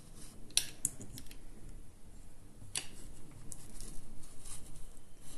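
A blade cutting a slit through a scrapbook page: short scratchy cuts and clicks, a quick cluster in the first second and a sharper one near the middle.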